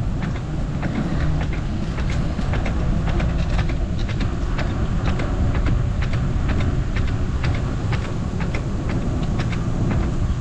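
Bicycle being ridden along the trail: a steady low rumble of wind on the microphone, with many small irregular clicks and rattles from the tyres and bike.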